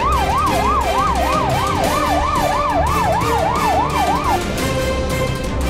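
Emergency-vehicle siren in a fast yelp, sweeping up and down about three times a second, over background music; the siren stops about four seconds in.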